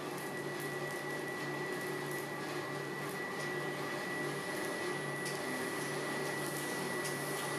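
Steady mechanical hum of workshop machinery with a constant high whine and a low drone that pulses about three times a second.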